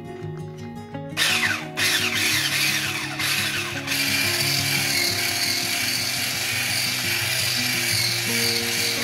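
Handheld electric whisk whirring as it beats flour into cake batter in a glass bowl. It starts about a second in and briefly stops near two and four seconds, over background music.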